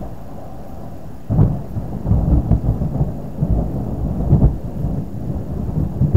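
Thunder: a sudden crack a little over a second in, then a low rumble that rolls on with several louder swells.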